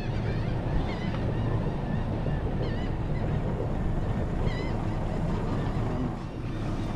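Outboard boat motor running steadily under way, with wind and water rushing past the hull. Short high chirps come now and then over it.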